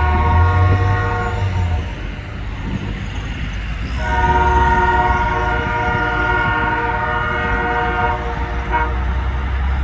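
Great Lakes Central Railroad diesel locomotive sounding its multi-chime air horn as it approaches: one blast ends about a second and a half in, then a long blast starts about four seconds in and holds until nearly nine seconds. A low rumble runs underneath.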